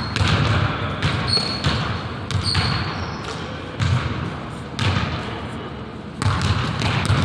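Basketball bouncing on a hardwood gym floor in uneven, irregularly spaced thuds, with a couple of short high sneaker squeaks.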